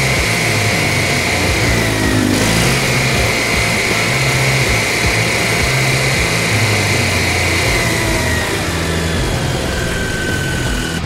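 Miller Trailblazer 280 NT engine-driven welder-generator running steadily, with music playing over it.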